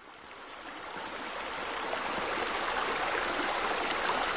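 Running water, a steady rushing and splashing, fading in over about the first two seconds and then holding steady.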